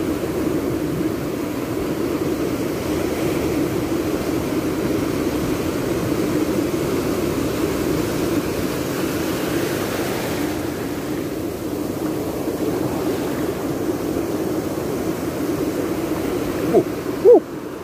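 Steady rushing of surf washing up a beach, with a couple of brief, sharp pitched sounds near the end.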